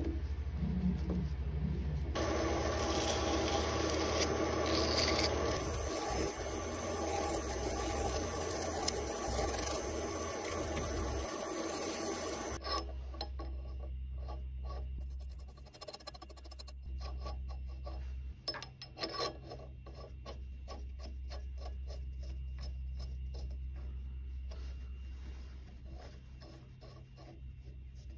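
A metal nut grating along a freshly cut steel thread, a harsh rasp of metal on metal that cuts off suddenly about halfway through. After that comes quieter, uneven scraping and clicking as the nut is turned by hand on the thread, over a steady low hum.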